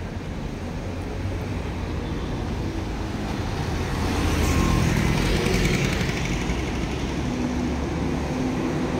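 City street traffic: cars and motor scooters passing, a steady engine rumble that grows louder around the middle as scooters go by.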